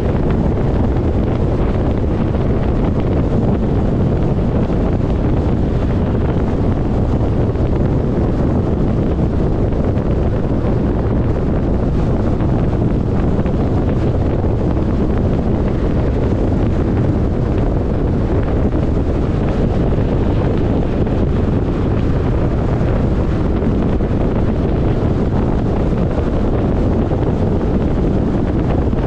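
Steady rumble of a car driving at highway speed: tyre and wind noise, low and unbroken.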